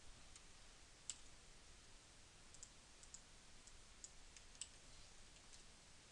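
Faint, scattered clicks from a computer mouse and keyboard, about ten in all, the clearest about a second in, over near-silent room tone.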